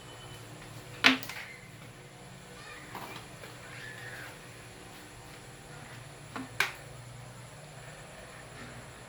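Sharp knocks over a steady low hum: one about a second in, then a quick double knock about two-thirds of the way through.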